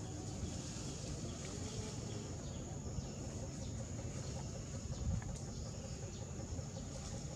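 Outdoor background noise: a steady low rumble with a thin, high, steady hum over it, and a soft thump about five seconds in.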